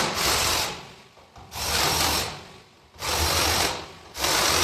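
Power drill with a step bit cutting into the truck's steel frame to clean up a hole, in four short bursts about a second and a half apart.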